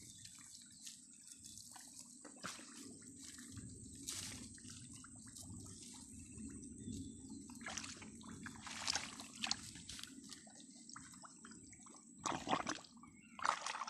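Hands digging and squelching in wet mud at the water's edge, with small irregular drips and splashes that get louder several times.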